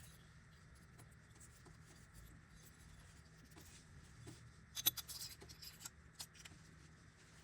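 Small hard parts of an airsoft gas pistol being handled: light rubbing and scattered clicks, with one sharp click about five seconds in followed by a brief flurry of small clicks.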